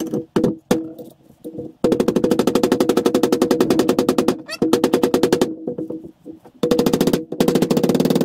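Hammer tapping a new bronze bush into the bore of a classic Mini rear radius arm, in quick runs of light strikes at about ten a second, the longest about two seconds in, to start the bush square in its bore.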